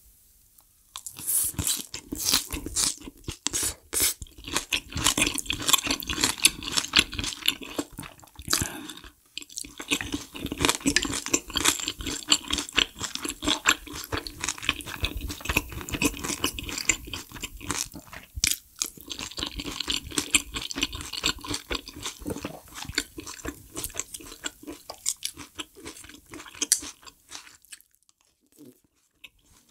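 Close-miked chewing of food, with rapid wet crunches and mouth clicks. It starts about a second in, pauses briefly twice and thins out near the end.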